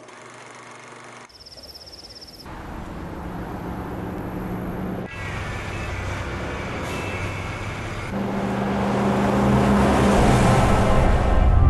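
Vehicle engine running with a steady low hum, its road noise building into a loud rushing swell over the last few seconds. A short high trill sounds about a second in.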